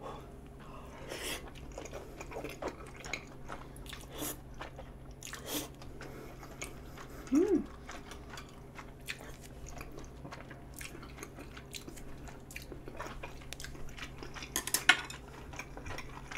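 Close-up eating sounds: a person chewing and slurping chewy rice-cake tteokbokki with melted cheese, with scattered light clicks of chopsticks against the dishes. A short voiced sound comes about seven and a half seconds in, and a sharp clack near the end is the loudest moment.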